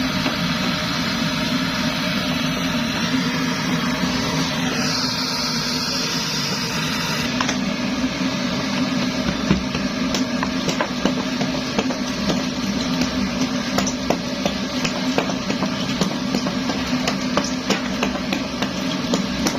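Kerosene pressure stove (primus) burning with a steady hum, with frequent sharp knocks throughout.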